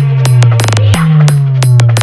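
Electronic DJ remix in the Bengali competition 'over bass' style: a heavy sustained bass note that restarts about a second in, under sharp percussion hits with a quick roll just before it and slowly falling synth tones.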